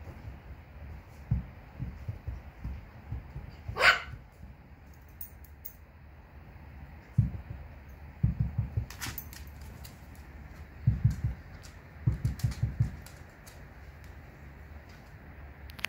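Small dogs playing: one short, sharp bark about four seconds in, then several short bursts of low rumbling as they tussle.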